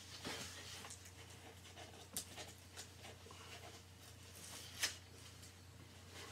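Faint handling of a shipping package being opened by hand: soft rustling with a few sharp clicks, the loudest about five seconds in.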